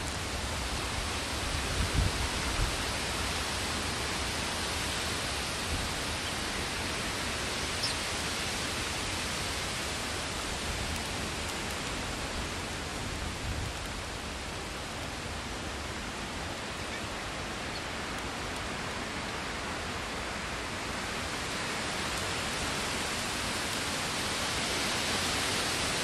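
Steady wind hissing through the trees, with low buffeting of wind on the microphone about two seconds in.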